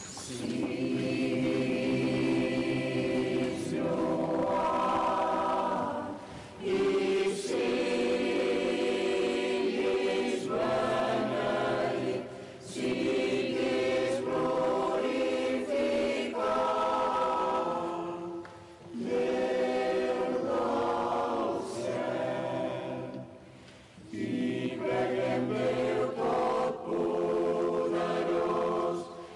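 Mixed choir of women's and men's voices singing a liturgical hymn in harmony. The phrases are held for a few seconds each, with short breath pauses about every six seconds.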